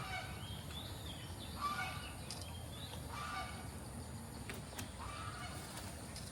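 Flamingos calling: about four short, goose-like calls spread across a few seconds.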